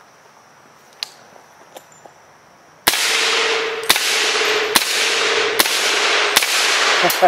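Suppressed .300 Blackout AR rifle firing six shots about 0.8 s apart, starting near the middle, after a few seconds of quiet with faint handling clicks. Each shot is a sharp crack followed by a long wash of echo. It is a little louder than the subsonic loads, because these are light 115-grain rounds and not the heavy subsonic ones.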